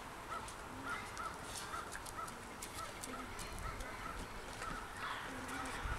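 A short, high animal call repeated about twice a second, with faint clicks and rustling in the middle.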